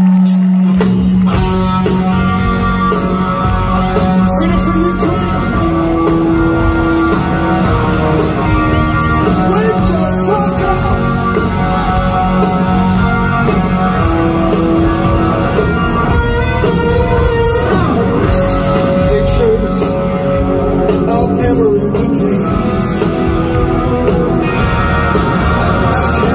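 Rock band playing live through a big arena PA, recorded on a phone in the audience: electric guitars, bass and drums, with a singer's voice. A held note leads in, and the full band, drums and bass, comes in about a second in.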